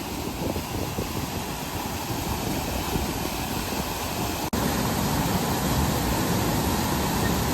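Steady rushing of a waterfall and fast river current. It breaks off abruptly about four and a half seconds in and resumes louder.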